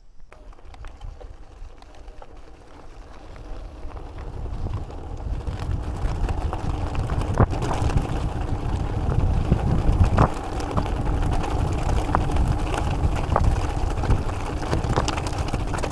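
Wind rushing over the microphone and the rumble of an Argon 18 Dark Matter gravel bike's 45 mm Vittoria Terreno Drive tyres rolling over loose gravel, growing louder over the first few seconds as the bike picks up speed downhill. Sharp clicks and knocks run through it as the bike jolts over stones.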